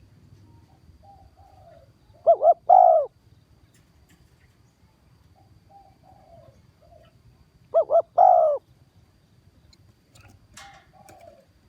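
Spotted dove cooing: two loud phrases about five seconds apart, each two short coos followed by a longer drawn-out coo, with softer, lower coos in between.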